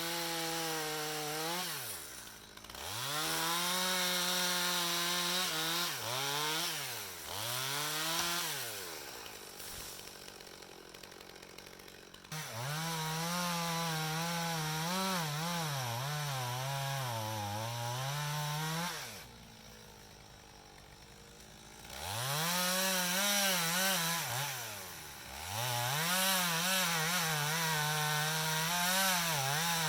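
Gas chainsaw revving and cutting into an oak trunk to fell it. It drops back to idle between cuts several times, with longer lulls around a third of the way in and again past the middle.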